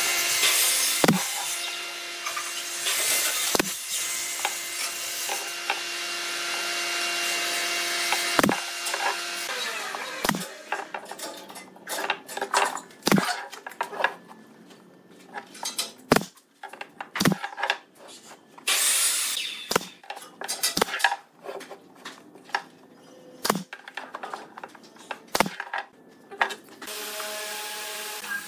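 Pneumatic brad nailer firing into pine boards: about a dozen sharp shots and knocks, spaced one to a few seconds apart. A steady hum with hiss runs under the first nine seconds or so.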